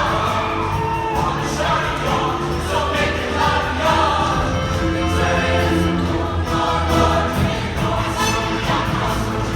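Music with a group of voices singing together over a steady bass line.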